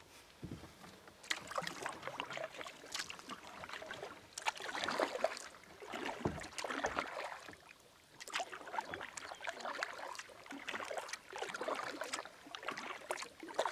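Kayak paddle strokes: the blades dip and splash in calm water again and again, every second or two, with water dripping off them between strokes.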